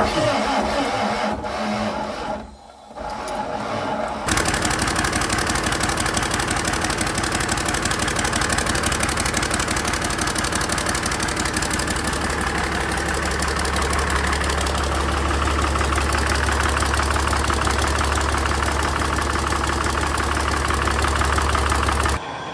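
A P-pumped 24-valve Cummins straight-six diesel is cranked hard on a 24-volt starter. It stops briefly about two and a half seconds in, then cranks again for a long stretch and begins to fire, growing deeper and heavier about halfway through, before cutting off just before the end.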